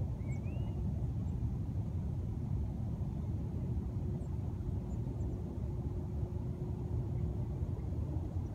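Steady low outdoor rumble with a faint steady hum through it, and a short faint chirp near the start.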